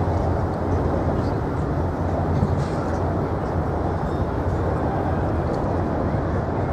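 Steady low rumble of outdoor background noise, heaviest at the low end, with no distinct events.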